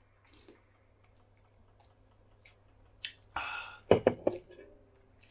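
A man drinking from an aluminium can: quiet sips and swallows, then about three seconds in a breathy exhale followed by two sharp knocks as the can is set down. A faint steady hum and faint ticking sit underneath.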